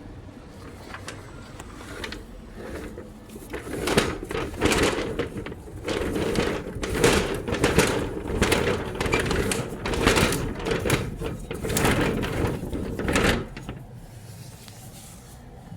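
Accordion storm shutter being slid along its track, the panels rattling and scraping in a run of pushes that starts a few seconds in and stops a couple of seconds before the end.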